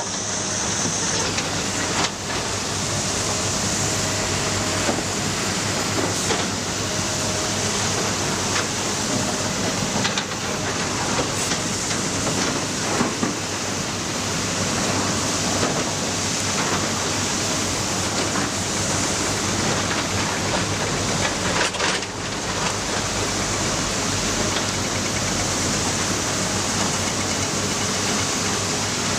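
Matador ME315LC excavator running steadily under load, a constant engine drone with a hiss over it. A handful of sharp knocks from working rock are scattered through.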